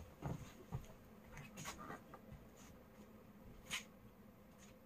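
Faint footsteps of soft-soled slippers on a linoleum floor, with a few light clicks and knocks, the clearest about three and a half seconds in.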